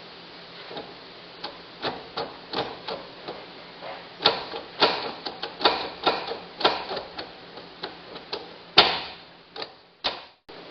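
Irregular clicks and light knocks as the carburettor choke cable and its linkage are worked by hand. At times they come several a second, and the loudest knock comes near the end. The cable is sticky.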